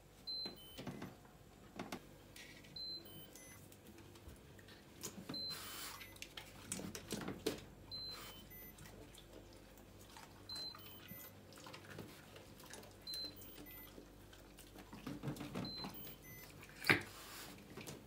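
Open refrigerator's door alarm giving a short high beep about every two and a half seconds, the sign that the fridge door has been left open. Between the beeps come soft rustles and knocks as a raccoon shifts about inside the fridge on the plastic crisper drawers.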